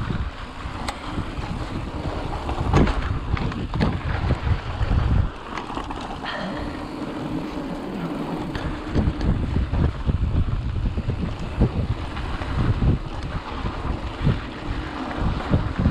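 Wind buffeting the microphone over the rumble of mountain bike tyres rolling on a dirt trail, with frequent sharp rattles and knocks from the bike over bumps.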